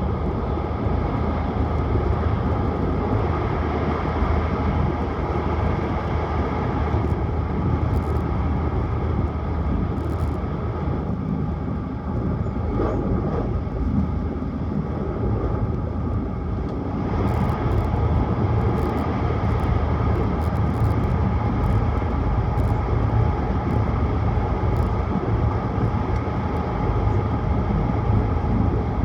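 Tohoku Shinkansen train running at speed: a steady low rumble of running noise that eases briefly about twelve seconds in and builds again a few seconds later, with faint light ticks now and then.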